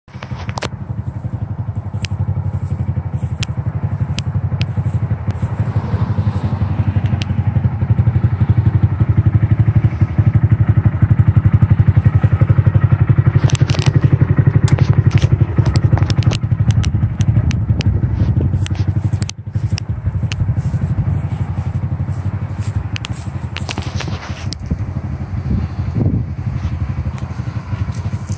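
Small motorcycle engine idling steadily with a fast, even low beat, growing louder for several seconds in the middle and then easing off. Scattered sharp clicks run over it.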